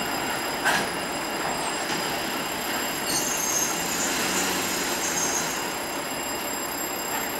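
ChME3T diesel shunting locomotive hauling a freight train past: steady engine and rolling noise, with a sharp knock just under a second in and the wheels squealing on the rails for a couple of seconds around the middle.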